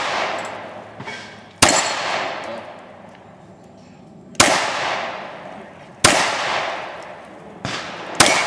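Four loud pistol shots fired at an uneven pace, about one and a half to three seconds apart, with a fainter bang just before the last. Each shot leaves a long echo dying away.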